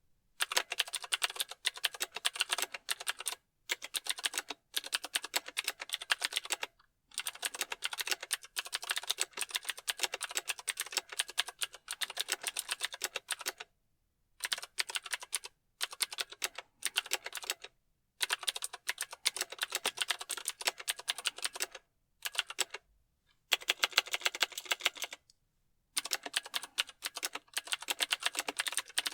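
Mechanical keyboard being typed on: rapid key clicks in runs of a few seconds, with short pauses between them.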